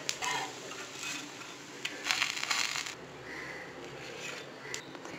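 Metal spatula scraping against a pan while spreading upma over a pesarattu, in a few short rough scrapes with the longest about two seconds in, over a faint steady hiss.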